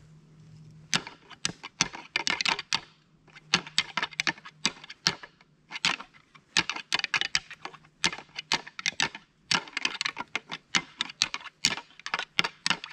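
Rattling antlers: a pair of deer antlers clashed and ground together in bursts of rapid clicking clacks with short pauses, starting about a second in. This is a hunter's rattling sequence imitating two bucks sparring, to call in a buck.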